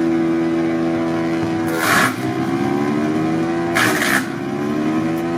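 JONCO R13P wood chipper running at speed. Twice, about two and four seconds in, the engine note sags and recovers while a short burst of chipping noise rises over it: branches are pulled in by the hydraulic feed roller and cut by the rotor.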